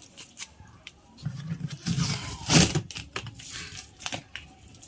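Packaging being handled while unboxing a mixer grinder: crinkling and tearing of wrapping with scattered clicks and knocks, loudest about two and a half seconds in.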